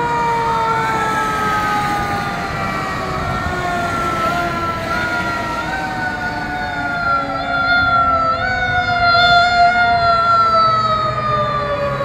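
Fire engine sirens approaching: several siren tones sounding together, each a long wail that falls slowly in pitch, some jumping back up and falling again. They grow louder from about two-thirds of the way in, with a low truck rumble underneath near the end.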